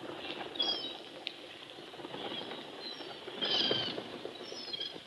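Gulls calling in flight: a few short, high, bending cries, the loudest about three and a half seconds in, over a steady background hiss.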